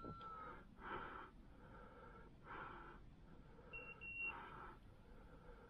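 A person breathing, faint and slow, each breath a soft hiss about every second and a half. Two very short high beeps about four seconds in.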